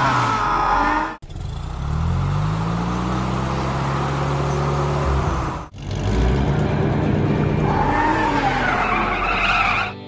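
Car engine sound effects running and revving, cut off abruptly twice, with tyres squealing in the last two seconds or so.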